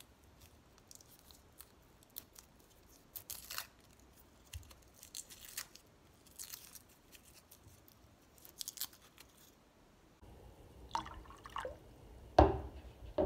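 Dry, papery garlic skins crackling and rustling in short bursts as cloves are peeled by hand. About ten seconds in this gives way to a pot of water bubbling at the boil, with a few sharp knocks near the end, one much louder than the rest.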